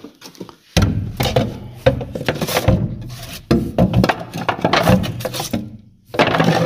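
Handling noise from a phone carried against the body: its microphone rubbing and scraping on a cotton shirt, with irregular knocks. It starts about a second in and eases off briefly near the end.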